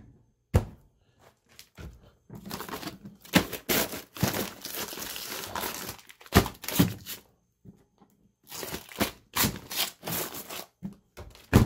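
Frozen food packages in plastic bags crinkling and rustling as they are shifted about inside a chest freezer, in irregular bursts with short pauses. A sharp knock near the end.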